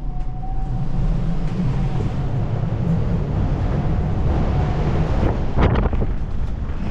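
Strong wind buffeting the microphone: a steady low rumble under a rushing hiss.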